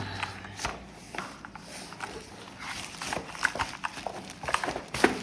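Irregular light clicks, taps and knocks of hands handling a keyboard and its box and packing during unboxing.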